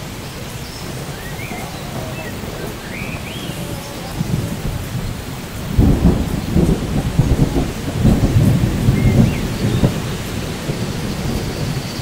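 Steady rain with a few short bird chirps in the first few seconds. About six seconds in, a rumble of thunder starts suddenly and rolls for about four seconds.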